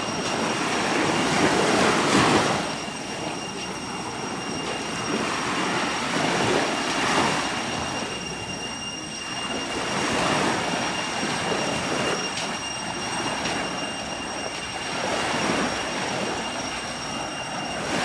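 Sea waves washing up on a sandy beach: a rushing surf that swells and fades every few seconds.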